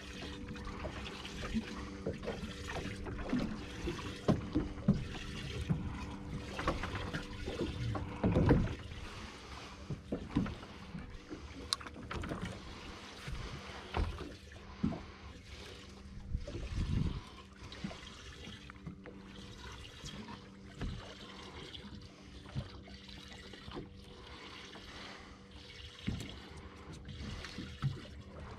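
Water sloshing, trickling and slapping against a fishing boat's hull, with scattered knocks and splashes, over a steady low hum from a motor or pump.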